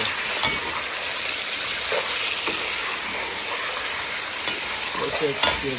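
Raw chicken pieces sizzling in hot oil with fried onions in a metal pot, stirred with a slotted spatula that scrapes and clicks against the pot. This is the stage where the chicken is seared in the onion oil.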